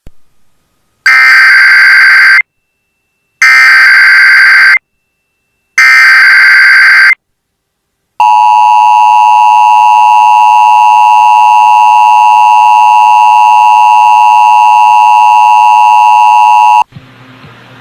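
Emergency Alert System test alert: three short bursts of the SAME digital header tones, about a second apart, then the steady two-tone EAS attention signal held for about nine seconds, cutting off shortly before the end.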